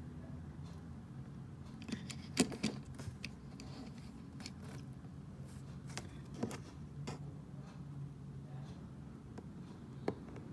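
Scattered small clicks and taps from a 1:64 die-cast model car being handled, over a steady low hum. The loudest cluster comes about two and a half seconds in, with more a few seconds later and one near the end.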